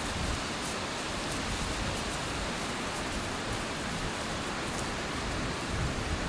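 Steady rushing noise of wind on the microphone, with uneven low rumbling gusts.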